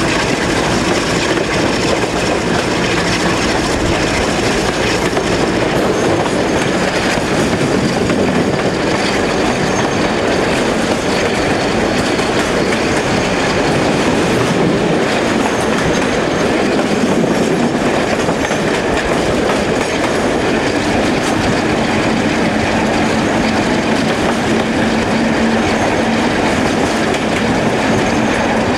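Class 47 diesel locomotive accelerating away under power, its Sulzer twelve-cylinder engine running steadily, with the wheels clattering over pointwork and crossings.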